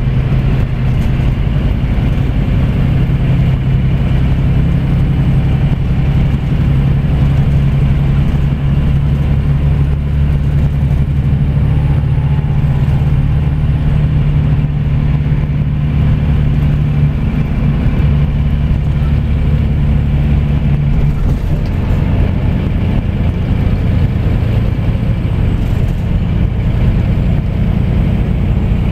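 Scania coach's engine and road noise heard from inside the cabin near the rear: a loud, steady low drone with a constant engine note. About three-quarters of the way through, the steady note gives way to a rougher rumble.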